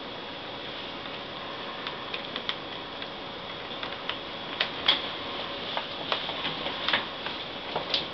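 Scattered light clicks and taps of a small screwdriver and the laptop's plastic and metal screen parts being handled while a tiny screw is driven in. The clicks grow more frequent in the second half, over a steady faint background hum.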